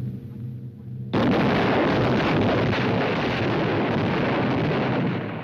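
Cartoon explosion sound effect: the grenades hidden in the ice cream bars go off. A low held note of music gives way, about a second in, to a sudden blast and a continuous rumble of explosions lasting about four seconds, fading near the end.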